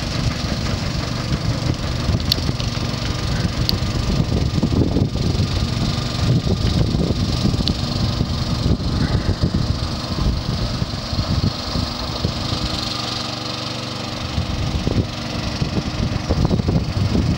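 Engine running steadily as a homemade paddle wheel on a pontoon boat churns and splashes through the water.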